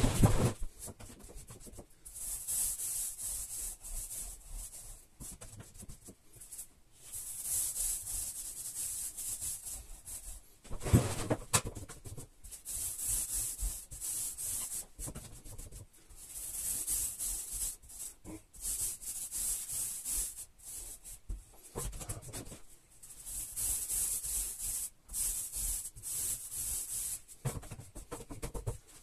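Fine paint roller rolling emulsion onto a smooth plaster wall in repeated strokes, each pass a high hiss. A few louder thumps come at the start and about 11 and 22 seconds in.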